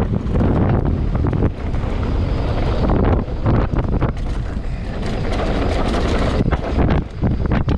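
Wind buffeting the camera's microphone as a full-suspension mountain bike descends a dirt and gravel trail at speed. Under it the tyres rumble over the ground, and frequent short knocks and rattles come from the bike jolting over bumps.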